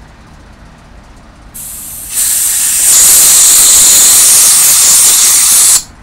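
Compressed-air blow gun blowing through a small Honda GCV160 carburetor jet to clear it out after cleaning. A softer hiss starts about a second and a half in, becomes a loud, steady hiss about half a second later, and cuts off suddenly just before the end.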